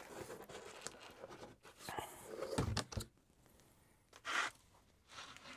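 Packaging being unpacked by hand: irregular rustling and crinkling of wrapping, with a few light knocks and a short scrape a little past four seconds.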